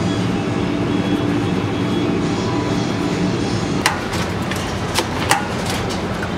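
Eggs being cracked open into a plastic bucket: three sharp shell cracks, the first about four seconds in and two more close together a second later, over a steady kitchen background hum.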